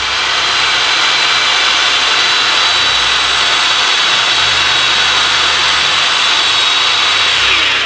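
Power drill used as a lathe, running at speed and spinning a PVC pipe while locking pliers clamped on the pipe shave it down: a loud steady whine with scraping noise. Near the end the drill winds down with a falling pitch and stops.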